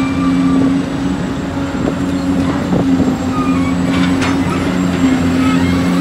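Heavy construction machine's diesel engine running steadily, with short high-pitched metal squeaks and a couple of sharp clanks, one about four seconds in.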